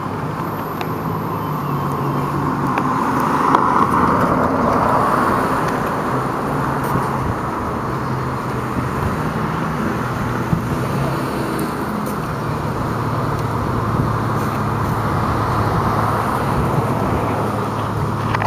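Street traffic: cars running and driving past on the road, swelling louder about four seconds in and again later on.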